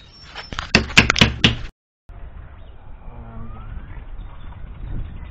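Claw hammer blows, about six quick strikes in a little over a second, driving the bolts through the gate hinge into the new post. They break off abruptly, leaving only faint handling noise.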